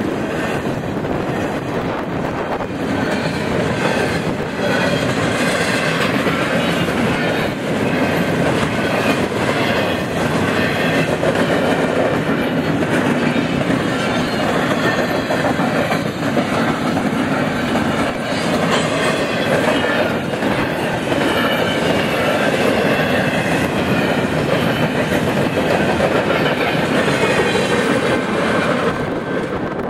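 Empty double-stack well cars of a freight train rolling past close by, steel wheels clacking over rail joints over a steady rumble. The sound falls away near the end as the last cars go by.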